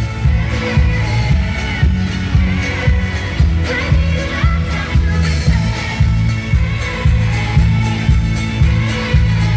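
Live country-pop band with a steady beat and a woman singing, amplified through a concert PA and recorded from the audience.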